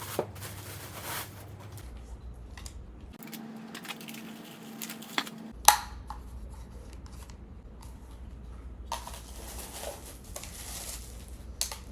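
Unboxing: packaging rustling and tearing as the vacuum's parts are taken out, with scattered clicks and knocks, the loudest a single sharp knock about halfway through.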